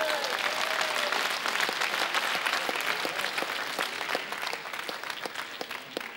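Studio audience applauding, dense clapping that stays full for several seconds and thins out near the end.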